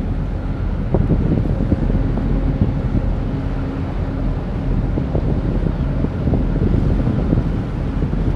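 Wind buffeting the microphone over the steady low drone of a ship's engines, with choppy water splashing.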